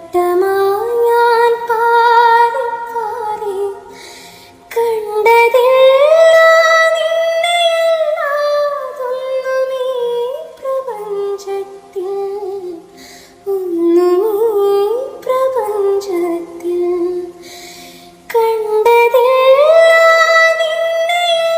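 A woman singing a slow, melodic Malayalam song, her voice gliding between notes in phrases of a few seconds with short breaks between them.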